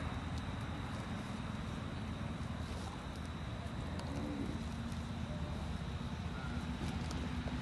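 Steady low outdoor rumble with a short, low, arched animal call about four seconds in.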